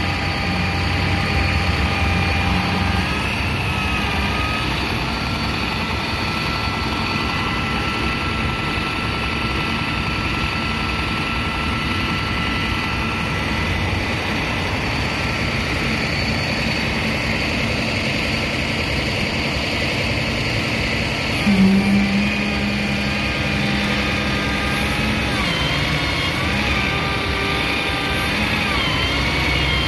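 Tow truck's engine running steadily while a car is loaded onto it, with whining tones from the loading gear that step and wobble in pitch. There is a brief louder surge about 21 seconds in.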